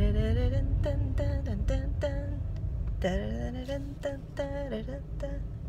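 A woman singing a wordless tune in short notes, with a longer gliding note about three seconds in, over the low steady rumble of a car driving, heard from inside the cabin.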